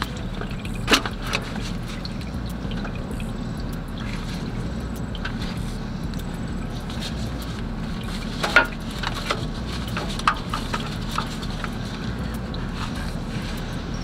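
Engine oil draining from a car's oil pan into a drain pan as a steady trickling pour, with a few sharp knocks and clicks from handling the oil filter and filter puller.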